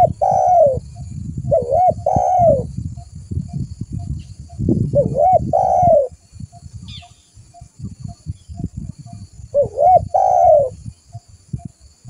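Spotted dove (tekukur) cooing in repeated phrases, four in all. Each phrase is two short notes followed by a longer, drawn-out coo, heard over a low crackling background noise.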